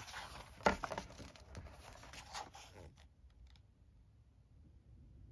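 Pages of a hardcover rulebook being turned by hand: paper rustling with a few sharp flicks, the loudest about a second in. The page-turning stops about three seconds in.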